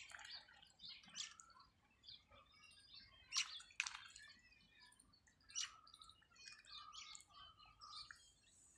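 Mallard ducks dabbling in shallow water: faint, scattered wet clicks and small splashes of bills working at the surface, with short bird chirps throughout and a few held whistly notes in the second half.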